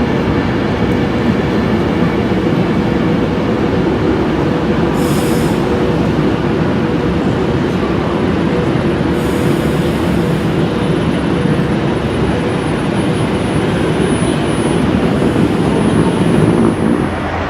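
Passenger train moving along the platform at close range: a loud, steady rumble, with two short hissing bursts about five seconds and ten seconds in.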